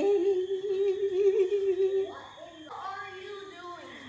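A woman humming one long, slightly wavering note for about two seconds, then a softer phrase that fades away.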